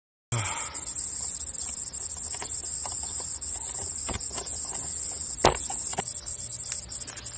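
Insects chirping steadily in the bankside grass, a continuous high-pitched trill. Scattered clicks and knocks of handling sit over it, the sharpest about five and a half seconds in. The sound cuts in suddenly just after the start.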